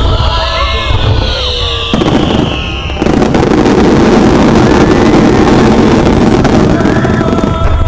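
Fireworks going off: several falling whistles for the first three seconds, then a dense, loud barrage of crackling and bangs from about three seconds in until just before the end.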